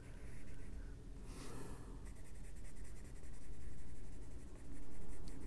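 Albrecht Dürer watercolour pencil shading on colouring-book paper: a run of quick back-and-forth scratching strokes.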